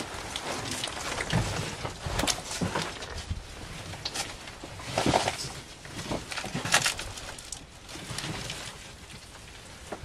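Irregular crunching, scraping and rustling of brick rubble and plaster debris as a person steps about on it and lifts a burlap sack off the floor, with the loudest scrapes about five and seven seconds in.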